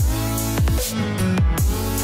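Electronic dance music, dubstep-style, with deep kick drums and sustained synth chords.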